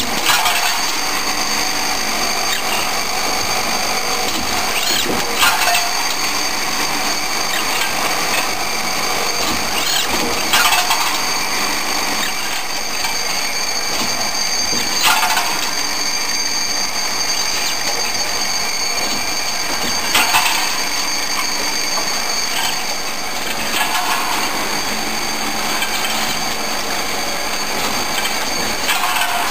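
Six-station CNC transfer machine running: steady machining noise with high steady whining tones, and a short, sharper burst about every five seconds.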